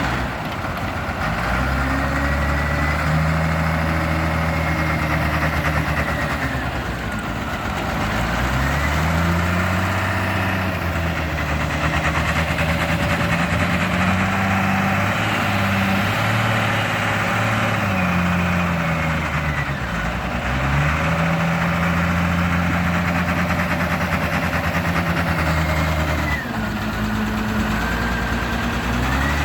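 Komatsu WA350 wheel loader's diesel engine working, its speed rising and falling several times as it revs up and drops back, with a high whine that follows the engine's pitch.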